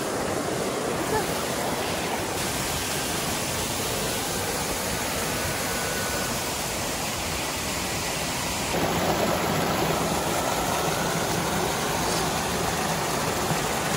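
Mountain stream rushing over small rocky cascades, a steady sound of falling water that grows a little louder and fuller about nine seconds in.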